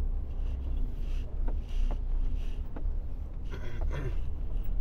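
Iveco truck's diesel engine running with a steady low drone, heard from inside the cab while driving, with a few faint clicks and knocks from the cab.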